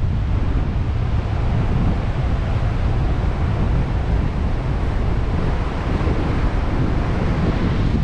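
Strong northwest wind buffeting the microphone in a steady, gusty rumble, over the hiss of rough surf breaking and washing up the beach.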